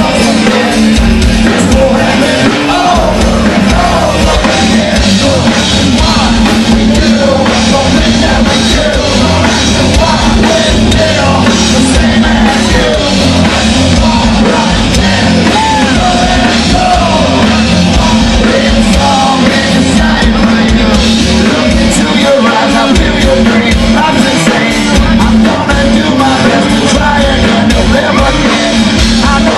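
Live rock band playing loudly, with electric guitar and a singer singing and yelling into a microphone, heard from the audience.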